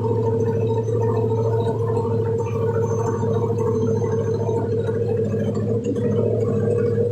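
Suzuki Raider motorcycle engine built to 450cc, idling steadily with its exhaust pulsing evenly and no revs.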